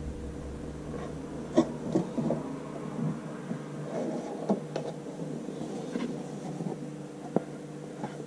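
Flexible spring-steel print sheet of a Prusa i3 MK3S+ 3D printer being lifted off its magnetic heatbed and handled, giving a few sharp clicks and taps, with a steady low hum underneath.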